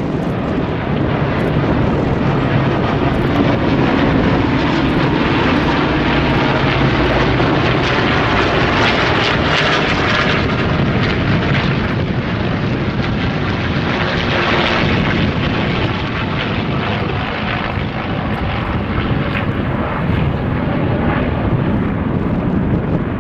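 Aircraft flying overhead: loud, steady engine noise that swells about nine to ten seconds in and again around fourteen to fifteen seconds in.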